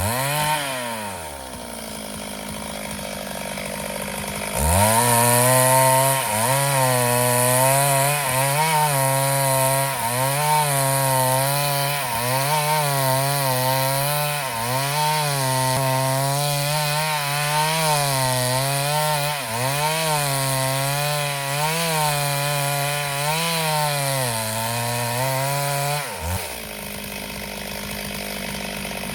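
Chainsaw engine idling, then revved up about four seconds in and cutting wood, its pitch dipping and recovering under load, before dropping back to idle near the end.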